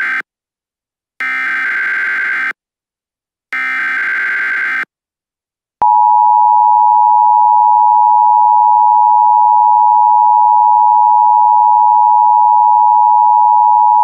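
Emergency Alert System tones: the tail of one SAME header data burst, then two more screeching digital bursts of about a second and a quarter each with short silent gaps between. About six seconds in, the loud, steady two-tone EAS attention signal (853 and 960 Hz) begins.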